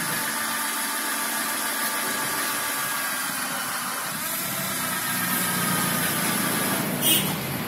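Cordless drill running steadily as it bores into a car's rear bumper to make a hole for a parking sensor, its pitch shifting about halfway through. A short sharp noise comes near the end.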